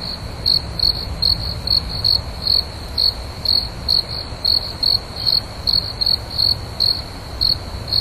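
Crickets chirping: short chirps at one high pitch, about two to three a second and unevenly spaced, over a low steady background rumble.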